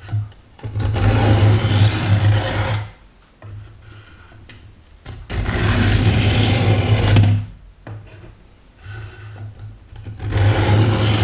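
Steel kitchen-knife blade drawn along the abrasive stone of a Work Sharp Guided Sharpening System: three long strokes of about two seconds each, with quieter scraping between them.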